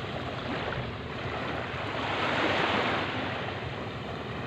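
Small sea waves lapping and washing up on a sandy shore, with one wave swelling in and washing up about two to three seconds in.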